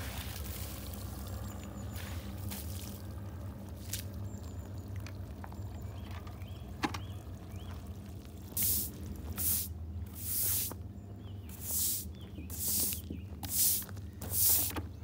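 Water poured from a bucket splashing onto a freshly milled cedar slab. About halfway through, a stiff broom starts scrubbing the wet slab in regular swishing strokes, about one a second.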